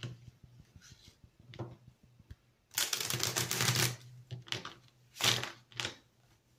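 A deck of oracle cards shuffled by hand: a rapid flurry of card edges flicking for about a second, a little under three seconds in, then two shorter flicks near the end.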